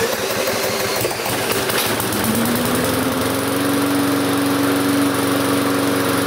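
Briggs & Stratton 3.5 hp lawn mower engine starting off a cordless drill spinning its crankshaft, then running on its own; about two seconds in it rises in pitch and settles into a steady run.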